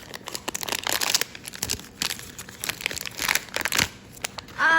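Crinkly plastic packaging of a blind-box figure being handled and unwrapped: an irregular run of crackles and rustles.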